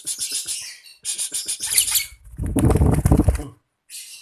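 Lovebirds chattering in a colony cage with rapid, shrill chirps. About two seconds in, a loud low rushing noise lasts about a second and stops suddenly, and a few more chirps follow near the end.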